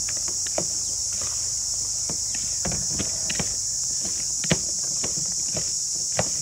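Steady high-pitched drone of insects, with scattered light clicks and taps from wooden chopsticks against a plastic bowl as a salad is tossed; the sharpest taps come about four and a half seconds in and near the end.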